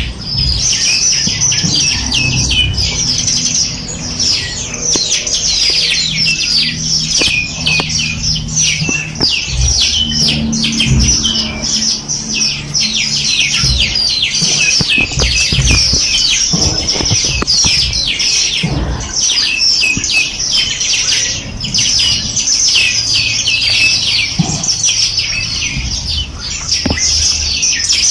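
Many small songbirds chirping and trilling at once in a dense, continuous chorus of rapid high notes, with a faint low rumble underneath.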